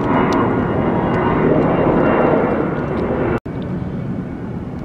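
Airplane flying overhead: a steady rushing engine drone that swells and then cuts off suddenly about three and a half seconds in, leaving quieter background noise.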